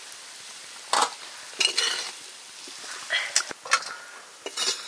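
A metal spoon scraping and clinking against a metal pot or plate in a handful of irregular short strokes.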